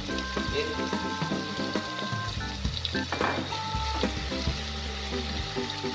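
Chopped garlic and onion sizzling gently in oil in a pot, slowly softening for a sofrito, with a wooden spatula scraping and stirring them now and then. Background music with held notes plays underneath.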